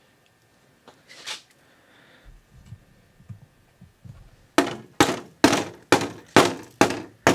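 A row of about eight sharp knocks, a little under half a second apart, after a few seconds of faint handling noises. This fits a dirty cabin air filter being knocked against a hard surface to shake loose built-up debris.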